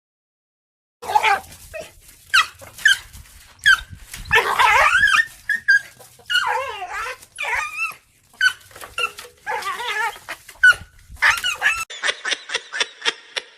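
A dog vocalizing: short yips mixed with longer wavering, whining calls that bend up and down in pitch. A fast run of short repeated sounds comes near the end.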